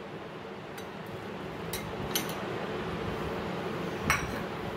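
A few light clinks of a steel bowl against the rim of a glass bowl as soaked poha is tipped and scraped into it, the one about four seconds in the loudest, over a steady background hiss.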